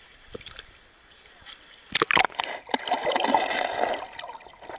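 Splashing about two seconds in as the camera is pushed under the surface of a shallow creek, followed by the muffled bubbling and gurgling of creek water heard from underwater.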